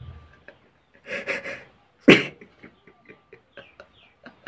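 A man laughing in breathy bursts, with one sharp, loud burst of breath about two seconds in, then short faint catches of breath.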